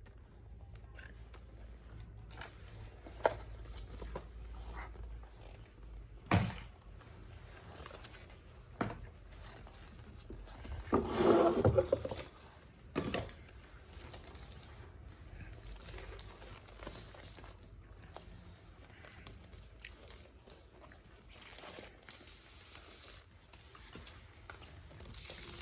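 Handling noise of scraping and rubbing, with scattered clicks and knocks, most likely from a tablet and its packaging being handled. A louder, brief pitched sound about eleven seconds in.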